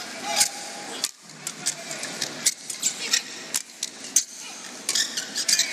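Badminton doubles rally: sharp racket strikes on the shuttlecock in quick, irregular succession, with shoes squeaking on the court mat and a murmuring crowd.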